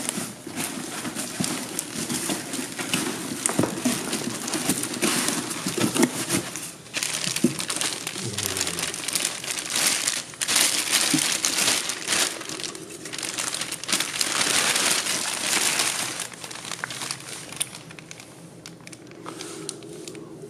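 Clear plastic bag crinkling and rustling as a boxed car stereo head unit is lifted out and unwrapped, with scattered small handling clicks. The rustling comes in bursts and grows quieter near the end.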